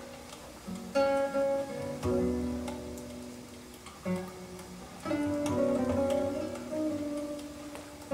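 Recorded Argentine band music played back over a hi-fi system's loudspeakers: acoustic guitar notes and strums, each group of notes struck sharply and left to ring and fade, with new phrases about a second in, at two, four and five seconds, and near the end.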